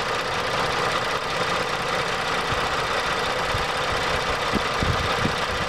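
2011 Ford Edge's 3.5-litre Duratec V6 idling steadily, heard close up in the open engine bay, with a few soft low thumps near the end.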